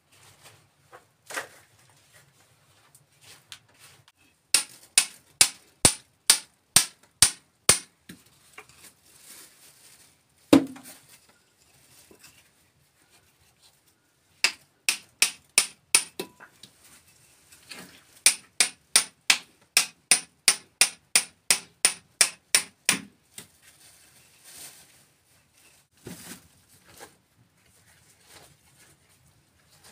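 Hand hammer striking a steel chisel held against rock, in runs of quick blows about three a second, each a sharp metallic clink: rock being chipped away while digging a trench. A single duller thud comes about ten seconds in.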